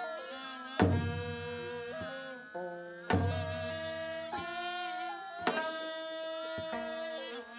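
Korean traditional ceremonial music: a melody of long held notes with small bends in pitch, over a deep drum stroke about every two and a half seconds.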